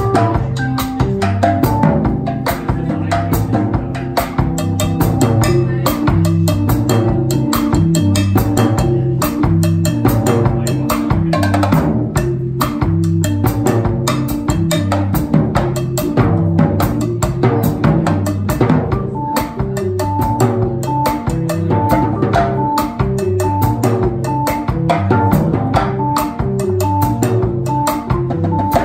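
Drum kit played with sticks, busy strokes on the ride cymbal, snare and drums, over low pitched notes from a second instrument stepping from note to note. From about two-thirds of the way through, a higher note repeats on a steady beat.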